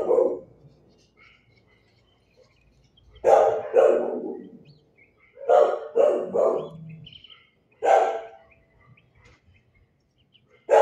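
A dog barking in short bouts: a single bark, a pair about three seconds in, three quick barks a little later, one more near the end and another at the very end.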